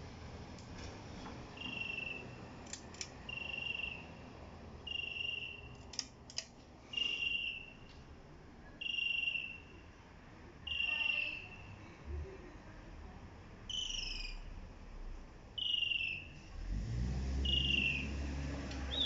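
A bird calling over and over: a short, slightly falling note about every second and a half, with a low rumble coming in near the end.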